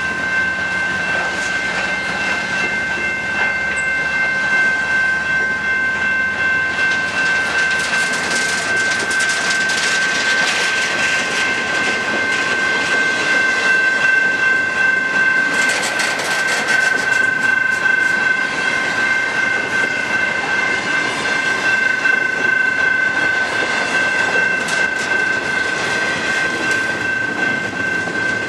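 Intermodal freight cars rolling past close by, their wheels clattering over the rail joints and the crossing in uneven spells of clicking. A steady high-pitched tone sounds throughout.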